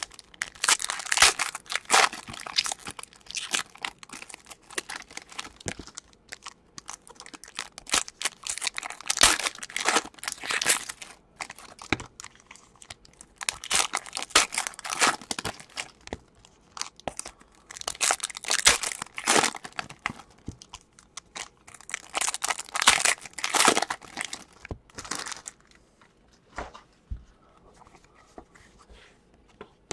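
Foil wrappers of Prizm basketball card packs being torn open and crinkled, in repeated bursts of crackling. Near the end it drops to the quieter clicks and rustle of a stack of cards being handled.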